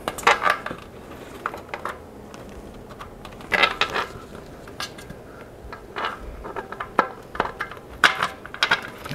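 Irregular clicks, taps and rustles of a rubber bicycle tire and inner tube being handled and pressed against a carbon wheel rim while they are fitted, the valve being worked into the valve hole.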